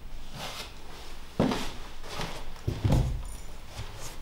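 Footsteps on a wooden plank floor: a few separate heavy steps with low thuds, about a second and a half apart.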